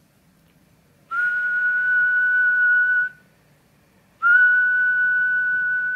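A person whistling a steady high note twice, each whistle sliding up slightly at its start: the first lasts about two seconds, the second begins about four seconds in and is still going at the end. The whistle serves as the test signal for a ham transceiver transmitting on single sideband.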